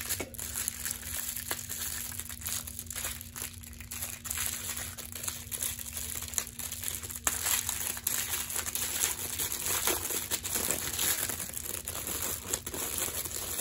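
Clear plastic packaging bag crinkling irregularly as hands handle it and work it open.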